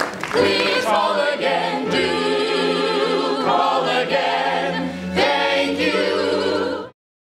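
A musical-theatre ensemble singing together in harmony, with wavering held notes and steady low notes beneath. The sound cuts off abruptly near the end.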